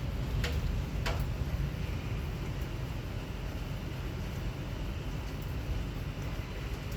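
Steady heavy rain with a low rumble underneath, and two sharp ticks in the first second or so.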